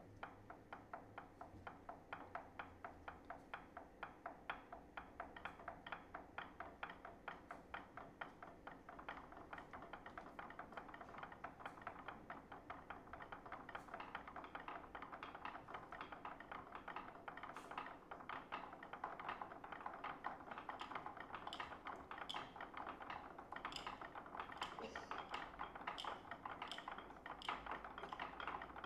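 Quiet, rapid ticking taps from taiko players' sticks, about four a second, growing denser and a little louder from about nine seconds in: the hushed opening of a taiko piece that depicts cicadas.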